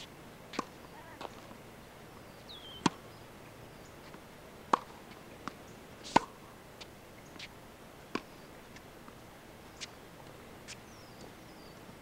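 Tennis balls being hit with rackets and bouncing on a hard court: a string of sharp pops at uneven gaps of about one and a half to two seconds, the loudest about six seconds in. Faint bird chirps come through twice.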